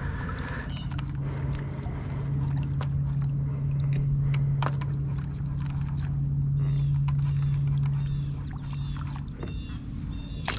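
A steady low hum that swells in the middle and cuts off about a second before the end, over scattered light clicks and small water sounds around a kayak.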